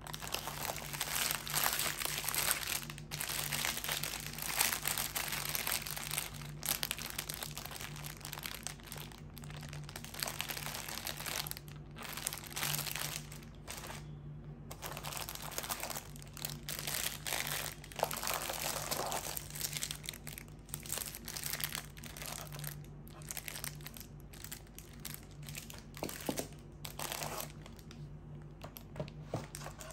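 Rustling, crinkling noise that goes on with short breaks, over a low steady hum.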